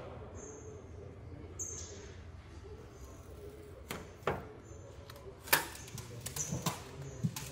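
Masking tape being peeled off a truck cab's painted panel: sharp rips and snaps, one pair about four seconds in and a quick cluster in the last two seconds, the loudest about five and a half seconds in. Under it runs a steady low factory hum.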